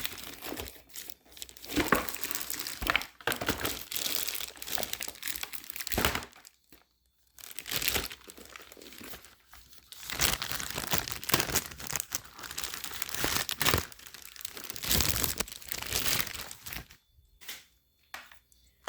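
Thin plastic film bag crinkling and rustling as it is opened and a new keyboard is pulled out of it, in irregular stretches with a couple of pauses.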